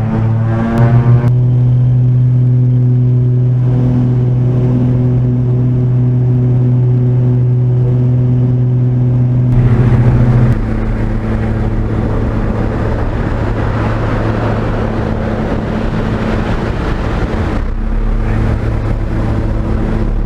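Skydiving plane's engine and propeller droning steadily, heard from inside the cabin. About halfway through, a loud rushing noise of wind and airflow joins the drone and stays.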